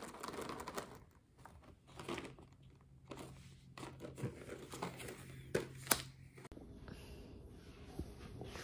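Rustling and crinkling of cardboard Jibbitz charm cards being handled as the plastic charms are pulled off them, with a couple of sharp clicks just past the middle. About two-thirds through it gives way to a faint steady hiss.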